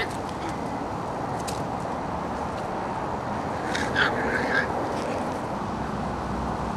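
Cavalier King Charles Spaniel puppies giving a few short, high yips around four seconds in, over steady background noise.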